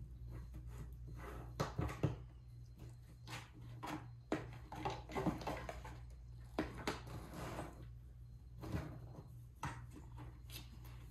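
A cat digging into a cardboard box, its paws and head scraping and rustling against the cardboard and the packing inside in irregular bursts, with two sharper knocks about two seconds in. A steady low hum runs underneath.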